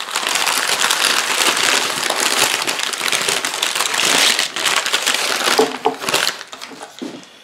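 Brown packing paper rustling and crinkling loudly as it is unfolded and crumpled by hand, dying down near the end.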